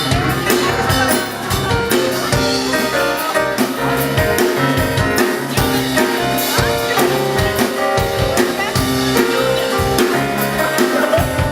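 Jazz band playing an instrumental passage with piano and drum kit, no voice singing.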